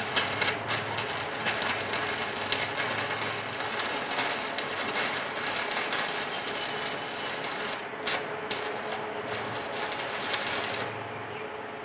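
Arc welding on scrap steel: a steady crackling sizzle from the arc over a low hum, dying away near the end.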